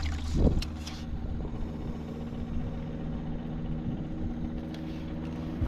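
An engine running at a steady speed: a low hum with several steady tones, and no change in pitch.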